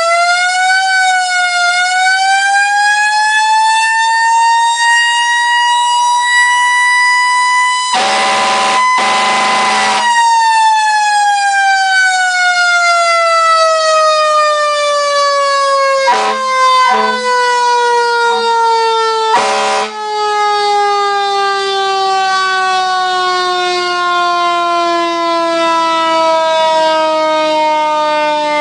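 Federal Q1B mechanical siren winding up to its peak wail, then coasting down in a long, slowly falling wind-down. A Grover single air horn blasts twice at the top of the wail and gives a few short blasts as the siren falls.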